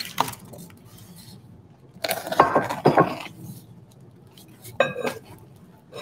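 Clay tea-cake storage box pieces knocking and clinking against each other as they are handled and stacked. A knock at the start, a cluster of knocks with short ringing about two seconds in, and a brief clink near the end.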